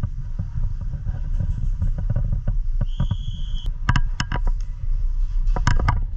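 Steady low rumble on a GoPro's microphone, with a brief high steady tone about three seconds in, followed by a run of sharp clicks and knocks.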